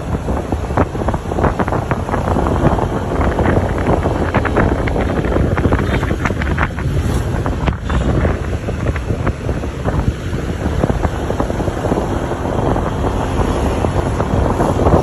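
Wind buffeting the microphone of a moving vehicle, a loud, steady rushing with constant gusty flutter, over the vehicle's running noise.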